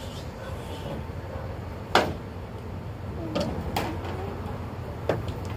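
A few sharp knocks and clicks over a steady low rumble. The loudest comes about two seconds in, with two more a little later and one near the end.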